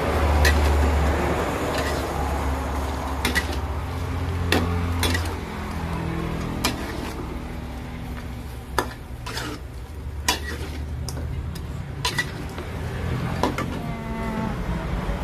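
Metal spatula stirring food in a wok, scraping and clacking against the pan every second or so, with the food sizzling as it fries.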